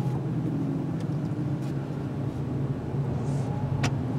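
Car running down a wet road, heard from inside the cabin: a steady engine hum with tyre and road noise. A single sharp click near the end.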